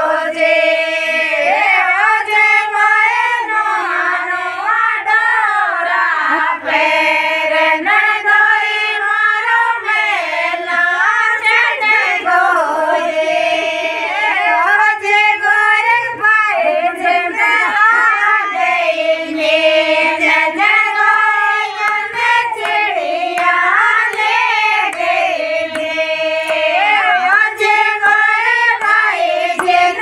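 A group of women singing a Rajasthani (Shekhawati) folk song, a nandoi geet, together in unison.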